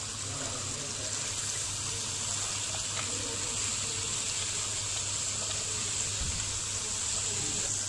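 Chicken and tomato-chili masala sizzling steadily in hot oil in a karahi, an even frying hiss.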